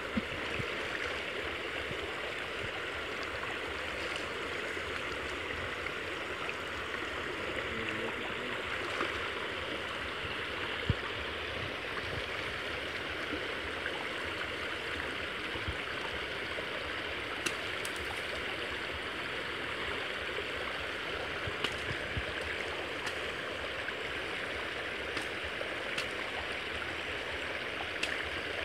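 Creek water rushing steadily through a gap in a brushwood-and-net fishing barrier, with a few brief clicks now and then.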